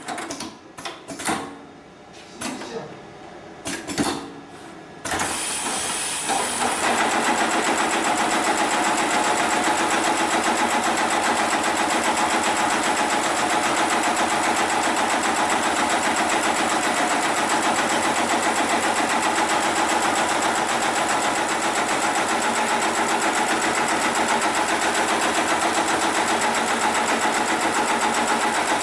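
Hightex 733PLC CNC pattern sewing machine stitching thick lifting-sling webbing. A few quieter clicks and knocks come first, then about five seconds in the machine starts sewing and runs steadily.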